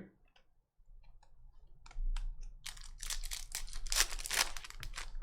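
Trading cards and foil pack wrappers being handled: a quick run of light clicks and rustles that starts about two seconds in, thickest near the end.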